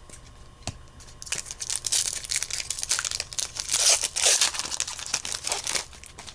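Baseball card pack wrapper being torn open and crinkled by hand, a run of crackling rustles lasting several seconds, loudest about four seconds in.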